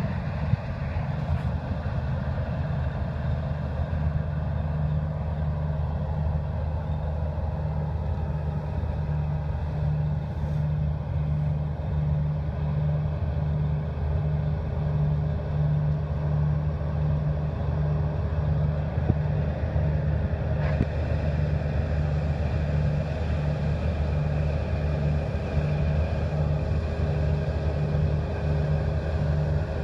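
Claas combine harvester running while cutting grain: a steady engine and machinery drone with a low throb that pulses about once a second.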